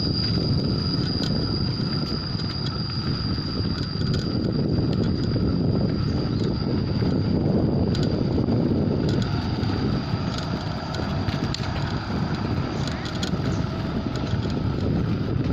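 Wind rushing over the microphone while riding a bicycle, steady throughout, with a thin steady high-pitched tone and a few light ticks.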